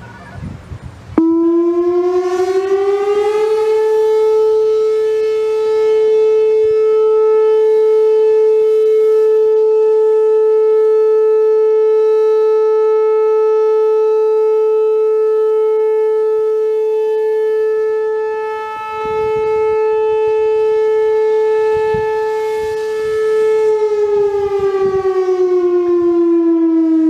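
Whelen WPS-4004 electronic warning siren sounding a steady alert tone at about 435 Hz: it starts abruptly about a second in, glides up in pitch, holds one steady tone for about 20 seconds, then glides back down near the end.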